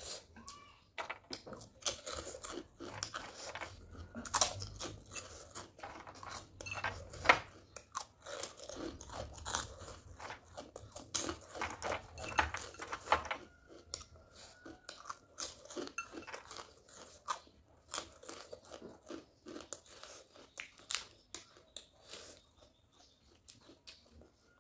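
A person chewing and crunching food close to the microphone, with many sharp crunches that come thickest in the first half and thin out later.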